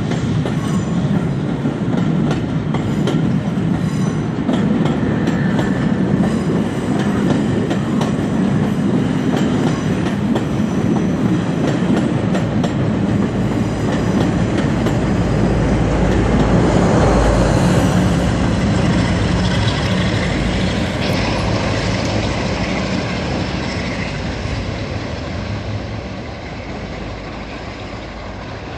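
Railway carriages rolling past close by on the Flying Scotsman's departing train, their wheels clattering over the rail joints. The rumble swells partway through and then fades away near the end as the train draws off.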